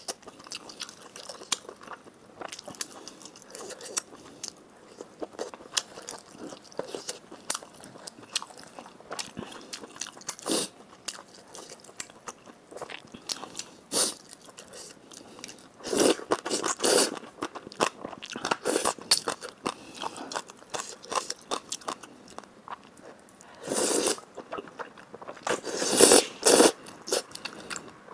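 Close-miked eating of saucy fire-chicken instant noodles: steady wet chewing and mouth clicks, with a few louder slurps of noodles about two-thirds of the way through and near the end.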